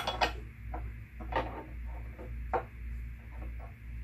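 A metal wrench turning the nut on the center pivot bolt of a Dobsonian telescope base, giving scattered metallic clicks as the tool works the nut against its washers, over a steady low hum.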